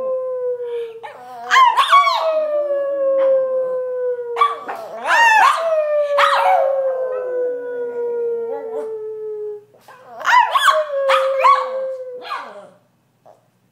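Brussels griffon howling along as if singing: several long howls, each opening with a sharp yelp and then sliding slowly down in pitch.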